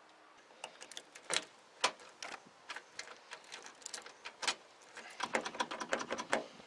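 Irregular metallic clicks and knocks at a car's door lock and handle, turning into a denser, faster rattling about five seconds in.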